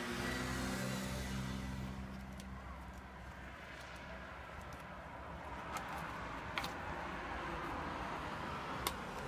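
A passing motor vehicle's engine hum fading away over the first couple of seconds, leaving a low background rumble. Over it come a few sharp cracks as a dog chews a strip of tree bark, the last one near the end.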